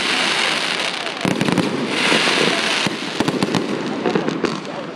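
Fireworks display: aerial shells going off, with two long spells of dense crackling, about a second each, at the start and around two seconds in, and quick runs of sharp bangs and pops in between and after three seconds.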